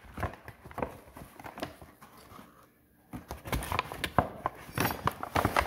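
Kitchen utensils handled at a counter: a spoon and dishes give irregular light taps and clicks, with a short hush midway, then a quicker run of louder taps in the second half.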